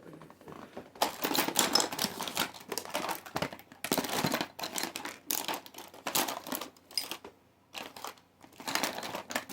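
Crinkling and rustling of plastic as makeup items are rummaged through in search of a brush, in clattery stretches with a short pause near the end.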